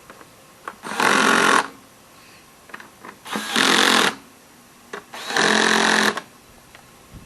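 A cordless power driver run in three short bursts, each well under a second, driving in the three bolts that hold the recoil pull-start assembly onto a Honda GCV mower engine.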